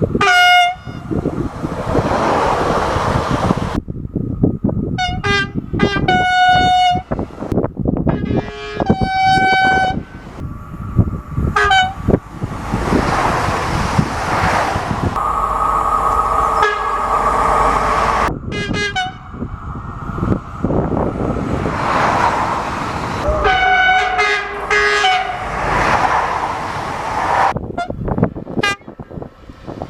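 A series of short train horn blasts from passing trains, about eight in all, some single toots and some longer blasts, with the rumble of the trains running past between them. The sound changes abruptly several times as one recording cuts to the next.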